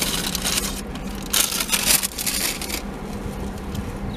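Paper burger wrapper crinkling as the burger is handled, in two bursts: a short one at the start and a longer one from about a second in.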